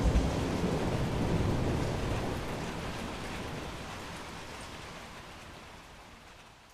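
Thunderstorm: a low rumble of thunder over steady rain, the rumble dying away and the whole sound fading steadily down toward the end.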